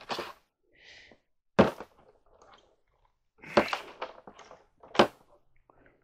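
Handling noise of objects being moved and set down: about four separate knocks and clatters with smaller clicks between them, and a short scrape about a second in.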